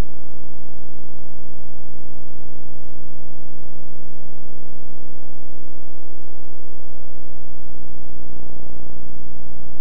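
Steady, loud electrical buzz with many even overtones, unchanging throughout: hum on an old videotape's audio track, with no game sound heard.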